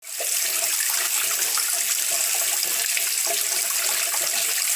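Water running steadily from a tap, starting suddenly.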